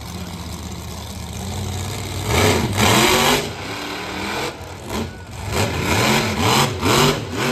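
Monster truck engine revving hard in repeated bursts, its pitch climbing and falling again and again, loudest about two to three seconds in, as the truck spins and rears up onto its back wheels.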